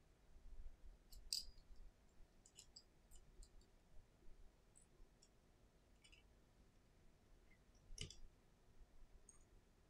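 Faint, scattered small clicks and ticks of a precision screwdriver and fingertips on the tiny metal screws and brackets inside an opened iPhone 11, with one sharper tap about eight seconds in.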